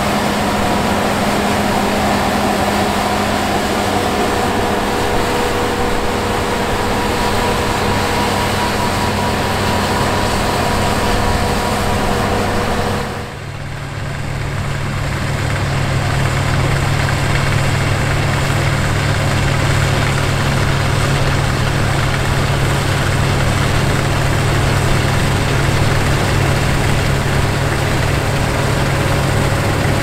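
790 hp Fendt Ideal 10T combine running steadily under load while harvesting wheat: a continuous engine and machinery drone. About 13 seconds in the sound dips briefly, then carries on as a deeper hum.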